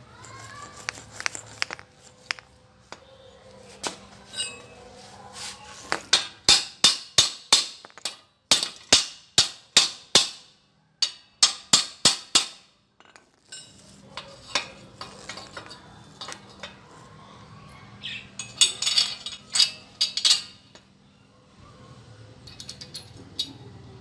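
Hammer striking the steel pedal bracket: a run of about fifteen sharp, ringing metal blows at two to three a second, then a shorter burst of metal clinks a few seconds later as the parts are handled.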